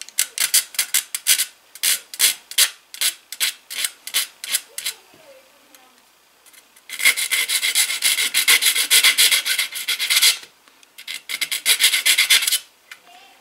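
Ultra-fine file rasping over leftover solder on a model locomotive's metal handrail stanchion. Separate short strokes at about three a second at first, then after a pause two runs of quicker, denser filing, in the middle and near the end.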